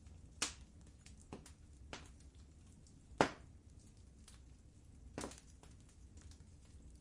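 Fire burning in a fireplace, crackling: scattered small ticks and five sharper pops, the loudest a little past three seconds in.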